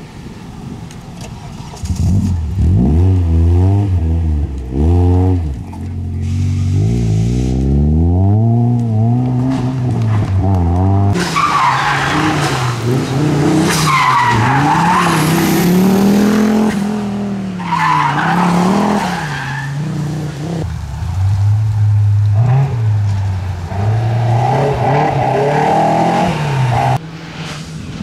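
Rally car engines revving hard, pitch climbing and dropping again and again through gear changes, as several cars go by one after another, with tyres skidding on loose gravel.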